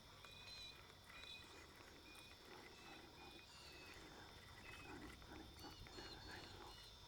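Near silence outdoors: faint short high chirps repeating about once a second over a low hum.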